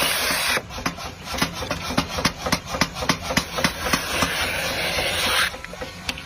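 Steel being worked by hand in knife-making: a rasping, scraping noise with many quick, irregular taps and knocks. The scraping stops near the end while the taps go on.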